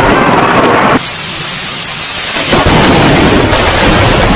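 Thunderstorm: steady rain hiss with thunder. The sound drops abruptly about a second in, then a loud thunderclap breaks in about two and a half seconds in and rumbles on.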